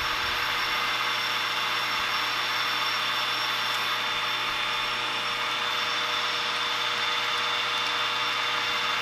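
Metal lathe running steadily, a constant motor-and-gear hum and whine with a hiss, as the turning tool takes a light finishing cut on a large round workpiece after a spindle speed change.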